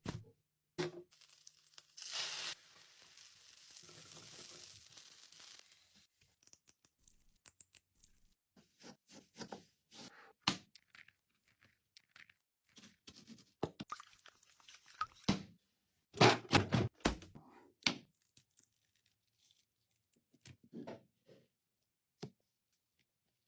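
Packaging being torn open and handled. About two seconds in comes a tearing rip that trails into a few seconds of steady rustle. After that come scattered crinkles, clicks and small knocks, loudest in a dense cluster about sixteen seconds in.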